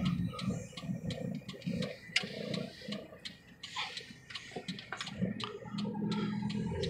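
Inside a car in slow city traffic: a low, uneven running rumble with light clicks and ticks throughout.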